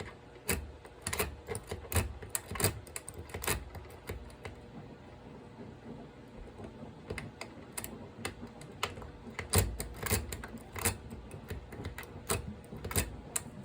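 Metal lock picks and tension wrench clicking and tapping: irregular sharp light clicks, bunched in the first few seconds and again near the end, quieter in between.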